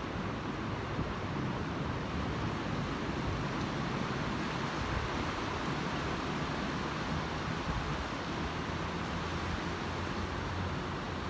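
Sea surf breaking steadily on the beach, with wind rumbling on the microphone.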